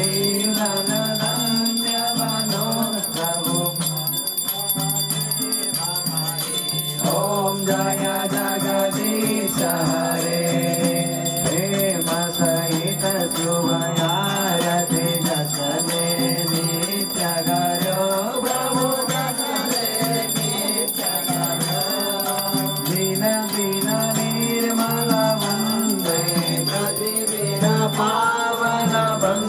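Devotional aarti hymn sung by voices, with a hand bell rung continuously throughout as the lamps are waved.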